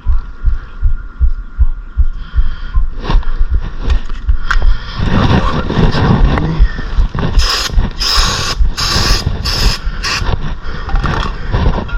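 Regular low thumps, then five short bursts of aerosol hiss about two-thirds of the way in: brake cleaner sprayed onto a new brake rotor to strip its anti-rust shipping oil from the braking surface.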